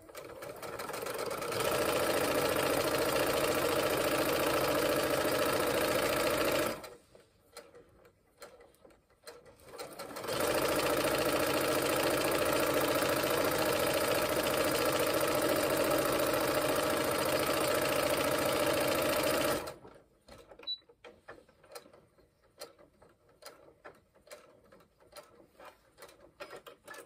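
Brother electric sewing machine stitching a seam through fabric, speeding up over the first second or two, running steadily for about six seconds, pausing, then running steadily again for about nine seconds. After it stops, scattered light clicks.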